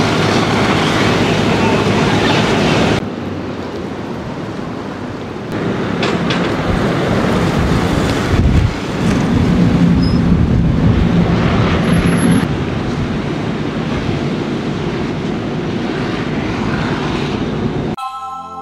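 Steady engine and street noise. A few seconds in it changes to a lighter rumble, and a utility bucket truck's engine runs as the truck drives off, loudest from about 9 to 12 seconds in.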